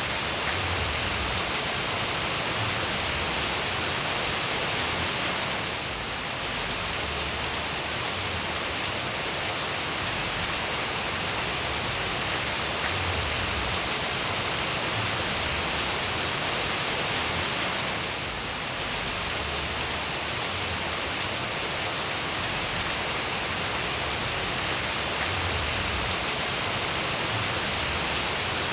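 Steady, dense rainfall hissing evenly, easing briefly twice before returning.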